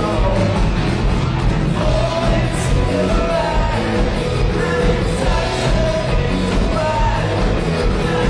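Rock band playing live: electric guitars, bass and drums, with a singer's voice over the top.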